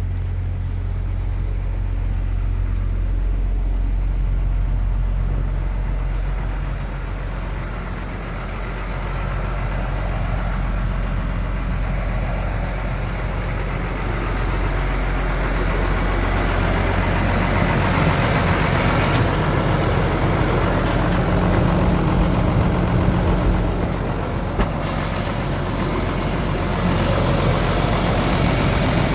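Ford F-700's 6.6-litre turbo diesel engine running steadily, a little louder and busier through the second half.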